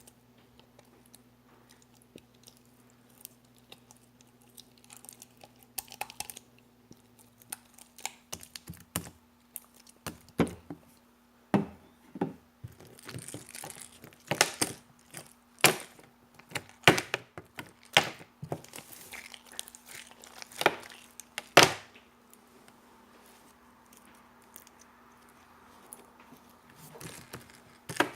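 Jiggly slime being handled, giving irregular sticky clicks and snaps, busiest in the middle, with a quiet spell of a few seconds near the end, over a faint steady electrical hum.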